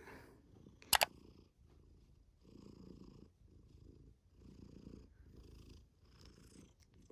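Domestic cat purring close up, in soft swells about once a second with each breath in and out. One sharp click about a second in.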